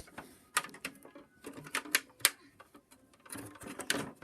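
Handling noise as toys are moved: irregular sharp clicks and knocks with short rustles, a busier run of them near the end.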